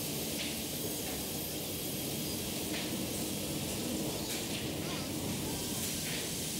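Sawmill machinery running: a steady mechanical din with brief hisses recurring every second or two.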